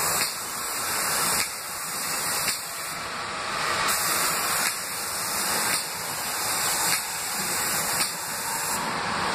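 Airless spray gun, fed by a Tornado Tiger 62.40 airless pump, spraying water-based epoxy paint: a steady high-pressure hiss that dips briefly about once a second.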